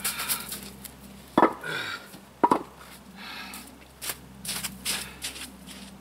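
Concrete cinder blocks knocking together, two sharp clacks about a second apart, between footsteps as the blocks are carried and handled.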